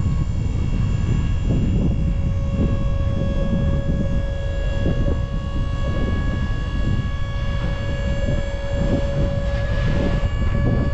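A large engine running steadily: a deep rumble under a constant whine. A hissing rush swells near the end.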